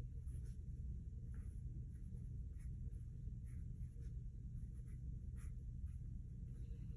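Faint, short, irregular taps from inside a tiled wall, roughly one a second, over a steady low hum.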